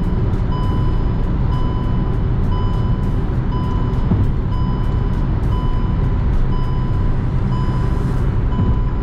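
Hyundai i20's overspeed warning chime beeping about once a second, each beep about half a second long, over a steady low rumble of engine and tyre noise inside the cabin at about 130 km/h. It is the continuous alert that Indian-market cars sound above 120 km/h.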